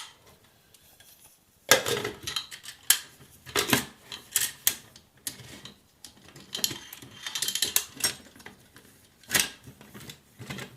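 Aluminium stove, cup and flask parts of a Swiss Army Volcano stove set clinking and knocking as they are fitted back together, in scattered bursts of light metal clatter.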